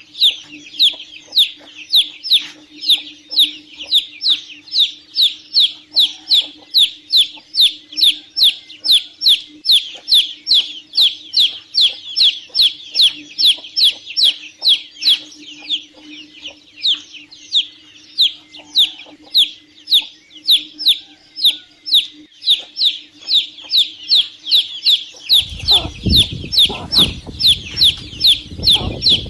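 Domestic chicks peeping continuously, a steady run of short, high, falling peeps at about two to three a second. A faint steady hum sits underneath, and a low rumble comes in near the end.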